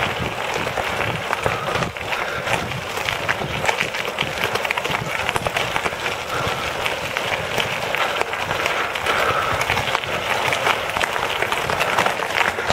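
Tyres of a recumbent pedal quad rolling over a loose gravel road: a steady, dense crackle of crunching stones.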